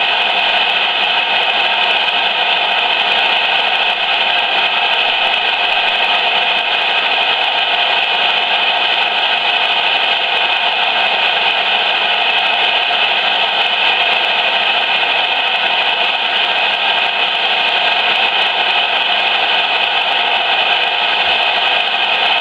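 Steady static hiss from a CB radio speaker, with no transmission on the channel.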